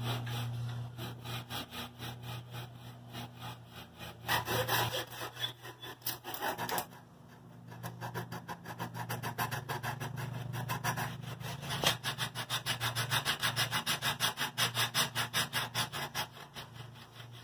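Small hand saw cutting through a wooden piece of a kayak frame in quick back-and-forth strokes, trimming off a protruding end. The sawing eases briefly about seven seconds in, then resumes in a fast, steady rhythm.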